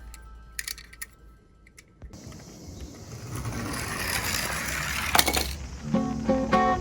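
Die-cast toy minicar rolling down a slope, a rattling roll that builds over a few seconds and ends in a sharp clack. Plucked guitar background music starts near the end.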